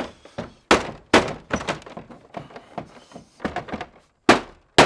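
Plastic housing of a ductless mini-split indoor head knocking against its metal wall mounting bracket as it is pushed and banged upward to clip it on. A string of hard, irregular thunks, with a lull in the middle.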